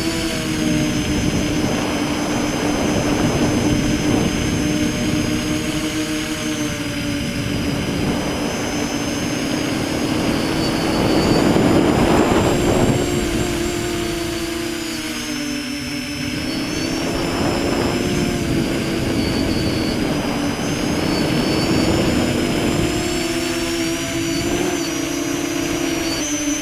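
Electric motors and propellers of a V-tail multirotor buzzing steadily in flight, with a high whine above the drone. The pitch wavers up and down with throttle changes, dipping and rising again about two-thirds of the way through.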